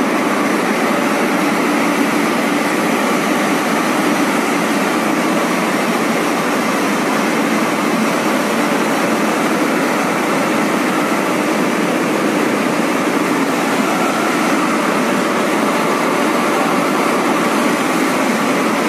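High-speed BOPP film coating machine running, a steady, unchanging mechanical whirr.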